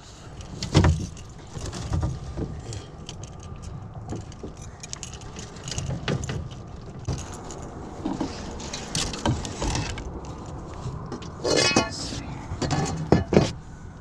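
Handling noise on a fishing boat: scattered knocks, clicks and rattles as a landed speckled trout is worked out of a landing net and held up, over a steady low background noise, with a cluster of louder knocks a little before the end.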